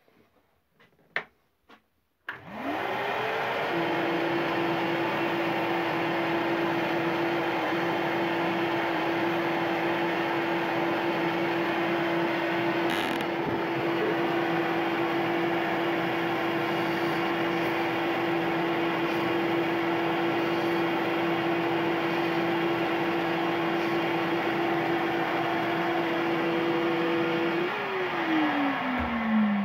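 Ryobi RBDS4601G belt and disc sander, a few clicks as it is switched on. It spins up to a steady motor hum with a rushing belt noise and runs while a lump of old hardened silicone is pressed against the moving belt to clean clogged dust out of the abrasive. It is switched off near the end and winds down with a falling pitch.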